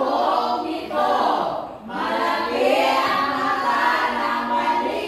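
A group of voices singing together without instruments, in sustained phrases broken by brief pauses.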